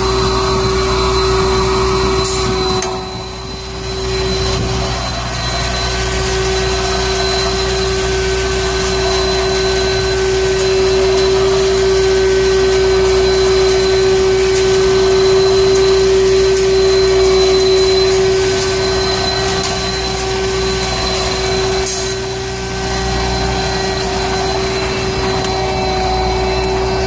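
Heavy road-construction machinery running steadily, with a loud constant whine over the engine noise; the level dips briefly about three seconds in.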